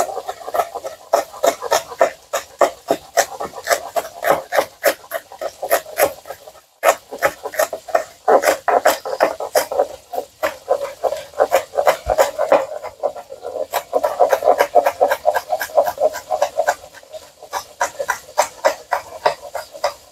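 Knife chopping green onions on a cutting board in quick, even strokes, about four or five a second, with a brief pause about seven seconds in.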